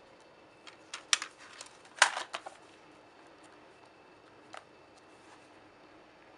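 Plastic DVD cases being handled on a table: a few sharp clicks and knocks, a cluster about a second in and the loudest about two seconds in, with a lighter tap a couple of seconds later.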